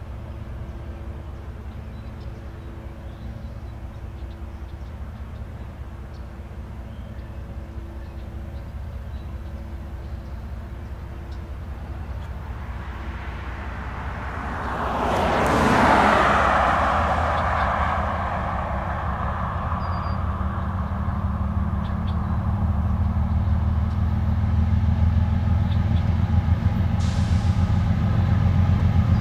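Diesel locomotives of an approaching train running, their low engine drone growing louder as the train nears. About halfway through, a loud whoosh swells and fades over a few seconds.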